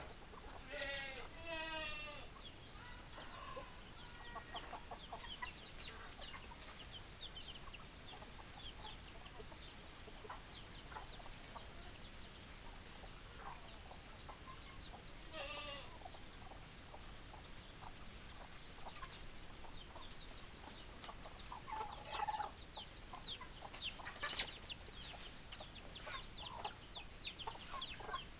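Domestic chickens calling: hens clucking, with a few louder pitched calls about a second in and about halfway through, over a nearly continuous run of short, high, falling chirps.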